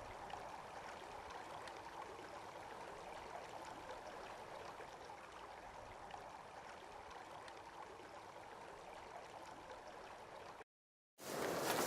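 Faint, steady rushing noise that cuts off abruptly to silence near the end.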